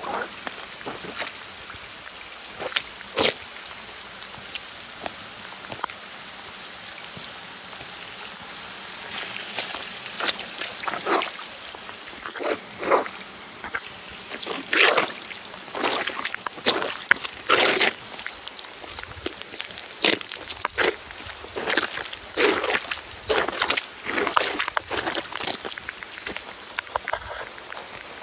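Steady rain with rainwater running along a kerb, and sneakers splashing and stepping in the shallow water: a few single splashes at first, then from about nine seconds in a dense, irregular run of splashes.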